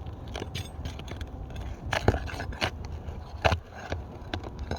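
Asphalt shingles being separated by hand, with irregular scraping and crackling as the sealed tabs come apart, and sharper cracks about two seconds and three and a half seconds in. The shingles are brittle and tear as they are lifted, a sign of a deteriorated roof that will not reseal.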